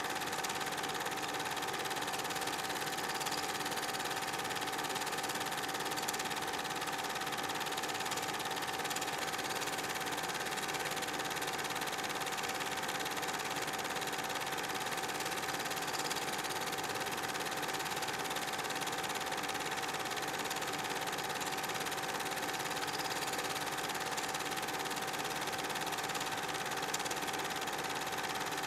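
Steady mechanical whirr with a constant hum: the running sound of a film projector. It does not change at all between the title card and the footage.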